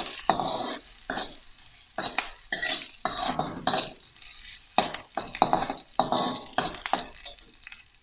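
Metal spatula scraping and stirring around a black wok in irregular strokes, about two a second, as chopped onion, garlic and ginger sauté in hot oil.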